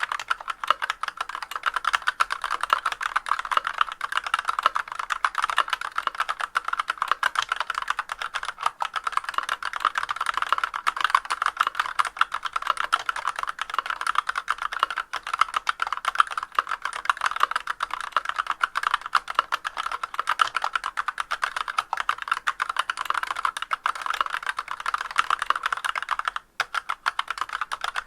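Continuous fast typing on a Massdrop CTRL High-Profile mechanical keyboard with Artbox Black linear switches and Leopold keycaps, a dense clacking of keystrokes. The keyboard is in stock condition, with unlubricated stabilizers and no sound dampening. There is a brief pause near the end.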